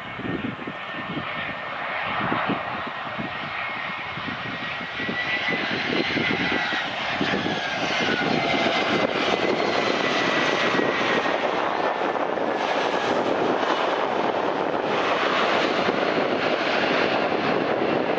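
Airbus A320-family airliner's jet engines landing: a whine that slides down in pitch on short final, then a louder, steady rush that builds after touchdown and holds, the sound of reverse thrust on the rollout.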